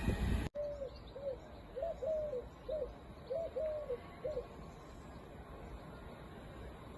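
Train noise cuts off abruptly half a second in, followed by a pigeon cooing: a run of about eight soft, low coos in short groups over some four seconds.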